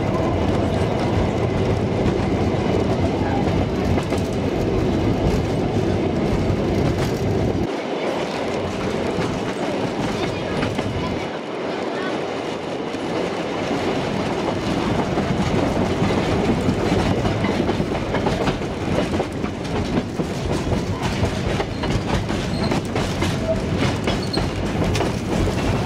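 785 mm narrow-gauge passenger train running, heard from an open coach window: a steady rumble and rattle, with the wheels clicking over the rail joints. The deepest rumble fades for a few seconds near the middle.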